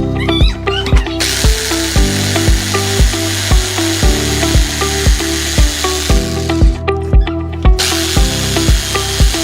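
Background music with a steady beat, with a power tool running over it as it cuts. The tool noise starts about a second in, cuts out for about a second past the middle, then starts again.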